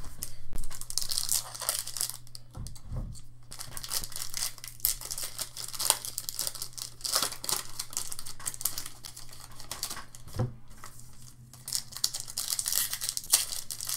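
Foil trading-card packs (2014 Bowman Chrome football) being torn open and handled, in irregular bursts of crinkling and tearing with sharp crackles throughout. A faint steady low hum runs underneath.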